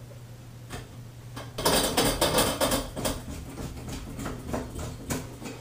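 Clattering and scraping of a hand screwdriver and metal shower-rod mounting hardware, in a dense burst of clicks about a second and a half in, then scattered clicks.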